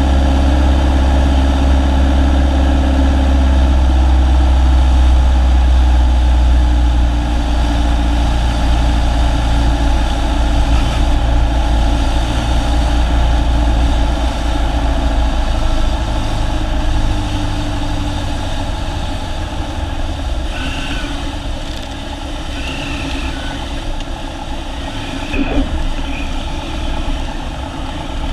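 Single-engine Cessna's piston engine and propeller running steadily on final approach, the low engine note fading and the overall sound easing off as power comes back for the landing. A few short, high chirps come in the second half, during the flare and rollout.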